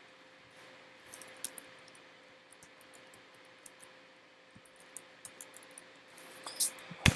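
A few scattered computer keyboard keystrokes over a faint steady hum, with sharper, louder key presses near the end.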